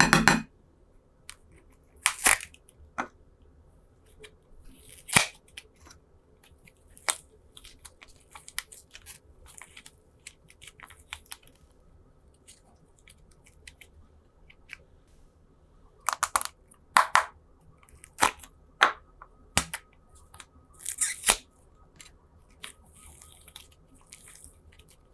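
Slime being handled by hand: scattered sticky squishes, crackles and small pops at irregular moments, with quiet stretches between. The busiest bursts come about two seconds in, around five seconds, and again between sixteen and twenty-one seconds.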